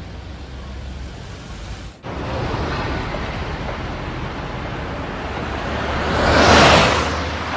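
Road traffic noise, then a vehicle passing close by: a rush that swells to the loudest point near the end and fades again.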